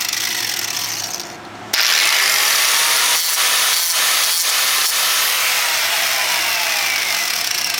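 Electric power tool running with a motor whine. It drops off briefly about a second in, then runs steadily again at full speed, with a few faint knocks in the middle.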